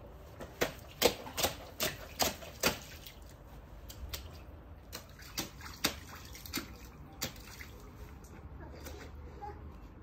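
A child's rubber boots splashing and stamping through shallow puddle water on paving: a quick run of splashes in the first three seconds, then slower, scattered splashes that thin out after about seven seconds.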